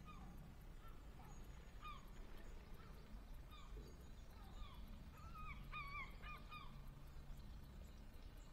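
Distant waterbirds calling from the lake: faint, short, slightly falling calls, a few spaced out, then a quick run of about six in the middle.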